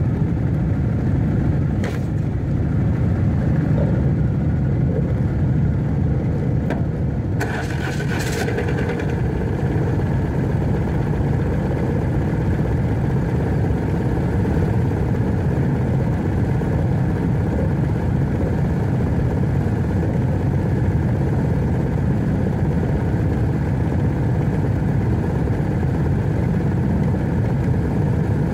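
BMW R1100RT's 1085 cc boxer-twin engine running steadily as a low, even rumble. A short hiss comes about seven seconds in.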